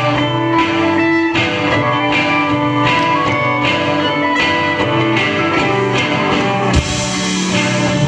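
Live rock band playing an instrumental passage: electric guitar over bass, keyboard and a steady drum beat. A loud crash comes about seven seconds in, and the band moves into a new section.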